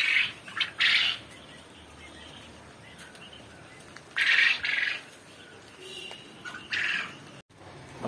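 Poultry squawking in several short separate calls, the loudest pair about four seconds in.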